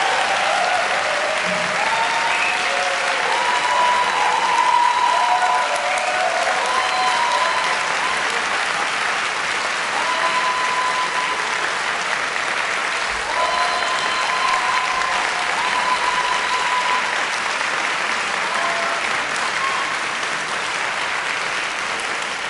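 Audience applauding steadily, with a few voices calling out above the clapping.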